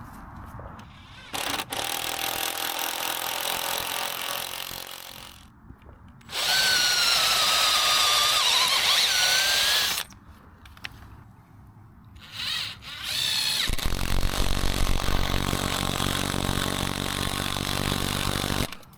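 A power tool, working on the wooden fence rails, runs in three bursts of a few seconds each. The middle burst is the loudest and carries a whine that wavers in pitch.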